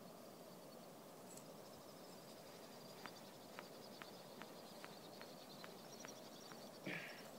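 Near silence: faint outdoor ambience with a steady, faint high-pitched trill. From about three seconds in there is a run of faint, evenly spaced ticks, two to three a second, and a brief louder rustle near the end.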